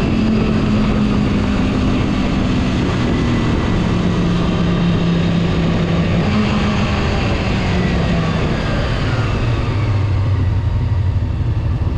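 Honda Hawk motorcycle's twin-cylinder engine heard from on the bike, its note falling steadily as the bike slows and dropping lower about nine seconds in, with wind rush on the microphone throughout.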